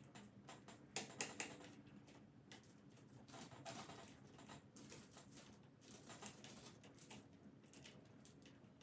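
Faint, irregular clicks and light tapping, with a few louder clicks about a second in.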